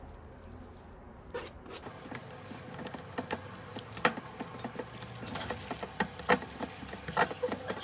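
Irregular light clicks and taps, typical of dishes and utensils being handled in a kitchen, growing busier after about two seconds.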